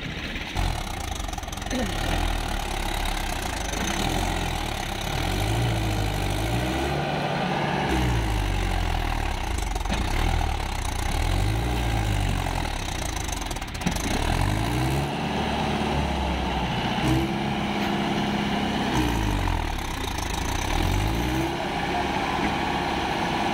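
Mahindra Yuvo 415 DI tractor's four-cylinder diesel engine revving up and falling back in repeated surges under heavy load, as the tractor, stuck in mud, strains to pull itself and its trolley out.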